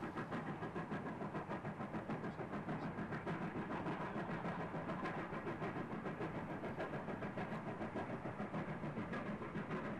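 Distant steam locomotive running: a steady, rapid stream of exhaust chuffs, about four or five a second.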